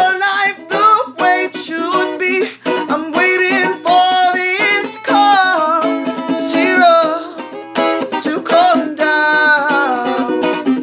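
A strummed acoustic string instrument, steady chord strokes, with a voice singing over it.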